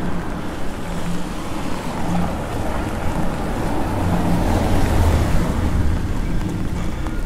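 Low, steady vehicle rumble that swells about four to five seconds in and then eases off.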